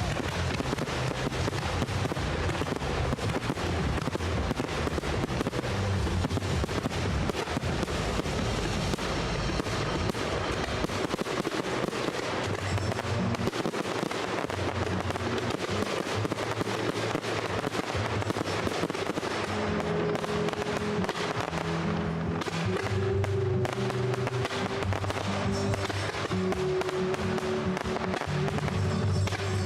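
Fireworks display firing a dense, continuous stream of crackles and bangs, with music playing alongside; the music's melody stands out more clearly in the second half.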